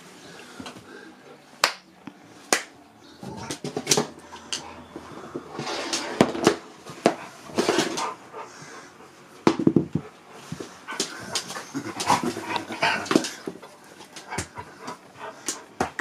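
Husky vocalising in a run of short, irregular grumbles and whines, 'telling off' its owner, with a few sharp clicks in the first few seconds.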